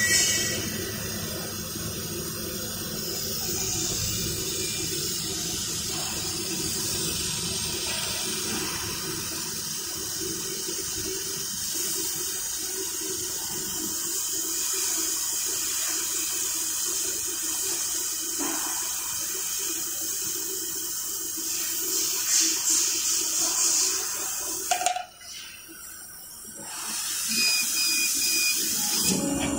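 Laser cutting machine at work, a steady rushing hiss over a low hum as the head cuts acrylic sheet. The sound drops away briefly about 25 seconds in, then the hiss comes back as metal sheet is cut.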